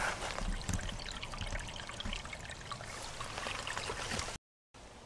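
Shallow woodland stream trickling over fallen leaves, with many small splashing drops. It cuts off suddenly near the end, leaving a fainter outdoor background.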